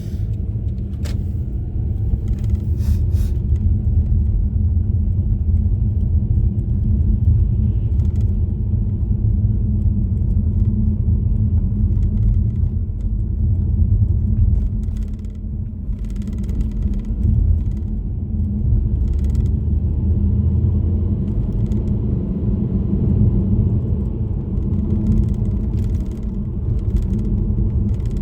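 A car being driven: steady low road and engine rumble.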